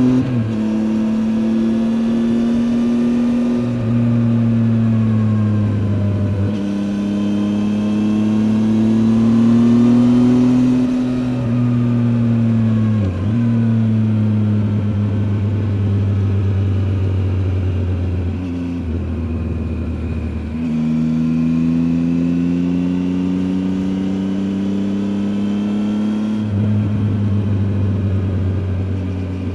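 Triumph Tiger 800 XCA's three-cylinder engine pulling the motorcycle along, its note rising and falling slowly with several brief dips as the throttle comes off and on.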